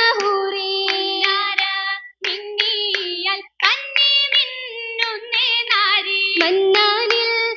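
Oppana: girls' voices singing a Mappila song, with the dancers' hand claps beating out the rhythm. The sound breaks off briefly twice near the middle.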